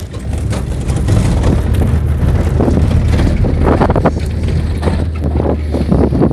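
Inside a lowered car driving on a rough dirt road: a steady low engine and road drone, with many knocks and rattles as the car jolts over the bumps.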